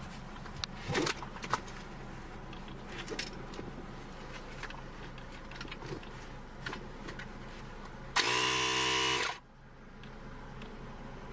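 A 12-volt mini air compressor switched on briefly, running with a loud buzz for just over a second about eight seconds in and then cutting off sharply. Before it come scattered clicks and knocks of handling over a faint steady hum.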